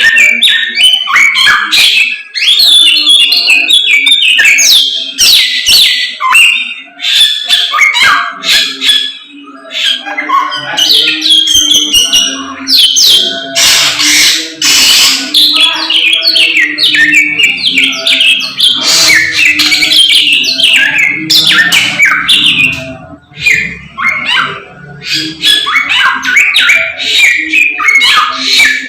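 A caged samyong songbird singing loudly and continuously: a rapid, varied run of chirps, trills and whistles with only brief pauses. A steady low hum sits underneath.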